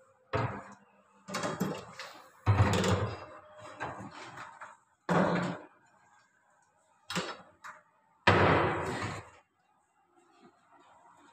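Cabinet or wardrobe doors being swung shut: a series of about six bangs and knocks, each dying away within a second. The loudest come about two and a half seconds in and again about eight seconds in.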